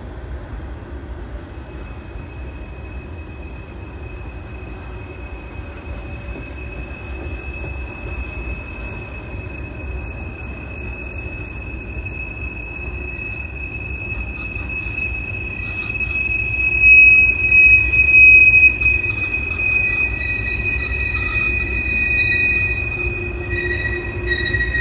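Norfolk Southern train rolling past with a low rumble and a steady high-pitched squeal of steel wheels on the rail, growing louder and loudest a little past halfway; a second, slightly lower squeal joins near the end.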